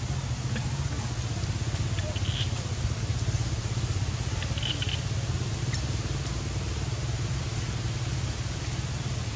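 A motor vehicle engine idling steadily, a low, even hum with a fine rapid pulse. Two brief high chirps come about two and five seconds in.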